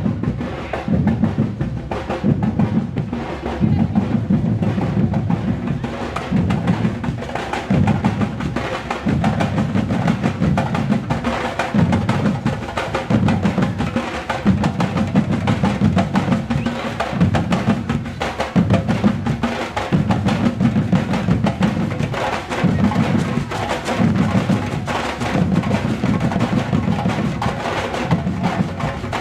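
Afro-Bahian-style batucada percussion ensemble playing a steady, driving groove: deep drums pounding in a repeating pattern under dense, sharper drum strokes.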